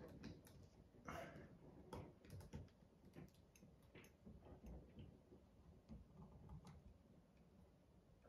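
Near silence with faint, irregular clicks and light taps from handling a handheld laser distance measurer held against the ceiling.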